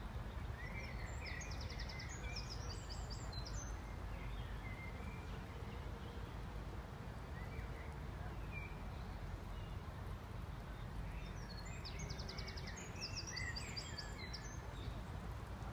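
Steady low outdoor background rumble, with a small songbird singing a quick, high song of rapid repeated notes twice: about a second in and again about twelve seconds in.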